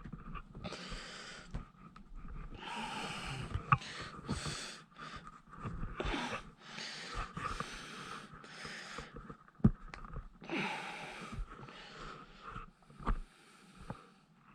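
A person breathing hard in a string of breaths about a second long while straining to press a plastic door pull handle onto a door card. A few sharp plastic clicks come through.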